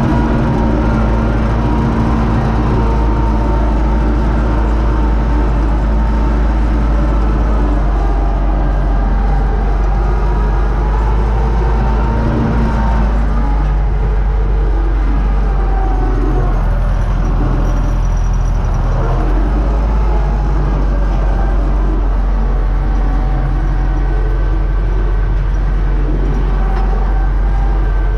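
Universal U650 tractor's four-cylinder diesel engine running steadily while driving across a field, heard from inside the cab. The engine note shifts slightly about halfway through.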